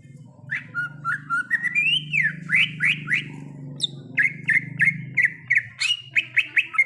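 Green leafbird (cucak ijo) singing: a fast, varied run of clear whistled notes starting about half a second in, some sliding up and down, then a quick series of repeated short notes near the end.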